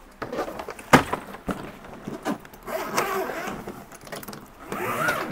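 Hard-shell trolley suitcase lid shut with a sharp knock about a second in, then the shell being handled and scraped as it is readied for zipping.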